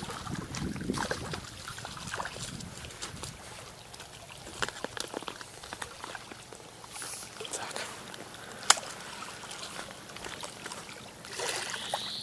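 Water splashing and trickling as a hooked fish is brought in to the bank, with scattered clicks and knocks from the fishing tackle and one sharp click about nine seconds in. A short rising squeak comes near the end.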